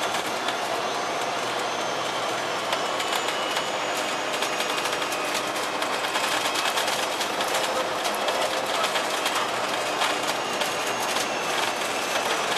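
Inside a moving double-decker bus: the Cummins ISL8.9e six-cylinder diesel and Voith DIWA automatic gearbox running under way. Through it come a faint high whine and many quick interior rattles.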